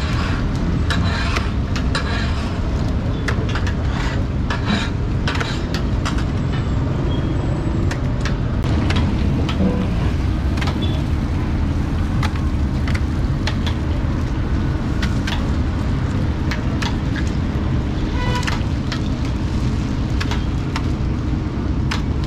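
Raw eggs cracked by hand one after another against the rim of a large steel frying pan: a run of sharp, irregular taps over a steady low rumble.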